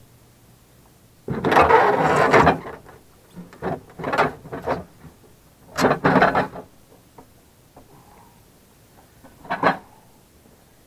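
A wooden cabinet drawer being pulled out and handled: scraping, rattling bursts, the longest and loudest about a second in, two more around the middle and a short one near the end.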